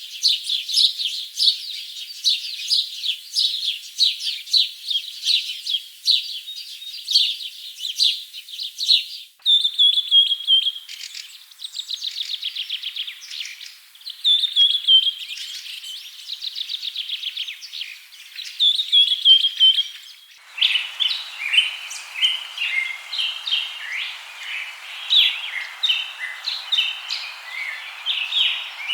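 Birds chirping and singing in quick, high-pitched phrases and rapid trills. The recording changes abruptly twice, and in the last part many birds chirp at once over a background hiss.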